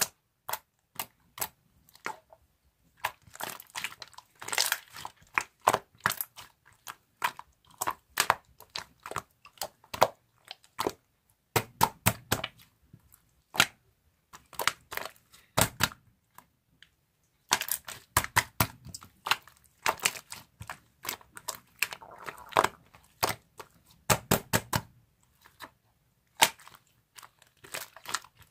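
Slime being squeezed and pressed by hand, giving irregular sharp clicks and pops that come in clusters with brief pauses between them.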